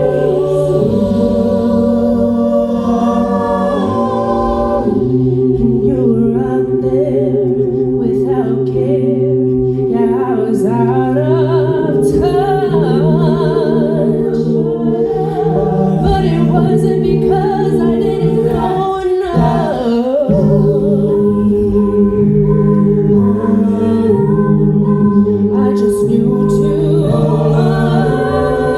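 A cappella vocal ensemble singing in harmony: several voices hold chords with vibrato over a sung bass line that steps from note to note.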